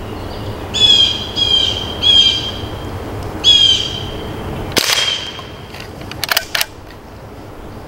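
A bird gives four loud, harsh calls, each a fraction of a second long, spaced about half a second to a second apart. About five seconds in comes a single sharp crack, followed a second or so later by a few quick clicks.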